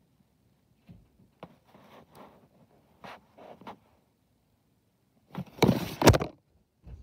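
Scattered soft rustles and scrapes, then a loud scraping rub lasting about a second near the end: handling noise of the camera being moved and pressed against fabric or fur.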